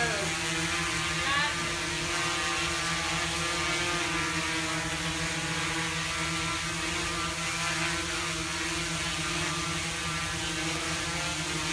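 Quadcopter's four rotors whirring in a steady hover, an even pitched hum over a rushing hiss that holds constant while the drone keeps its position.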